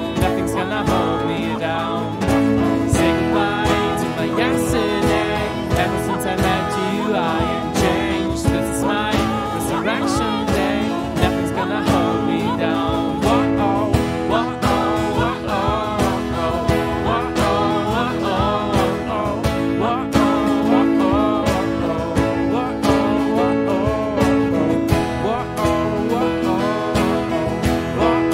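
Strummed acoustic guitar with a man singing along, a slow worship song.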